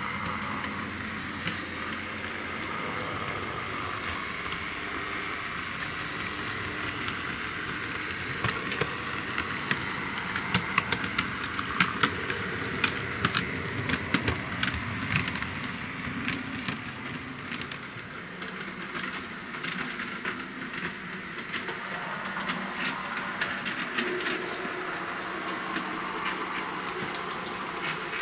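H0-scale model trams running on the layout track: a steady small electric motor whine, with the wheels clicking over rail joints and points, the clicks bunched in the middle of the stretch.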